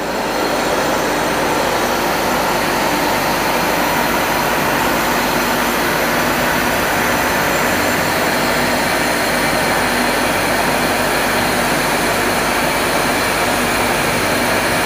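Francis turbine test rig running: the motor-driven feed pump and water rushing through the turbine, with the runner spinning at about 1000 rpm and water churning in the tailrace tank. A steady machine whir and rush with faint steady tones, growing louder over the first half second and then holding even.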